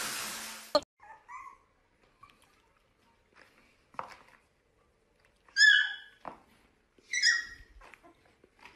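A steady rushing blower noise cuts off abruptly within the first second. Later a small puppy gives two short, high yips, about five and a half and seven seconds in, with fainter squeaks and small knocks between.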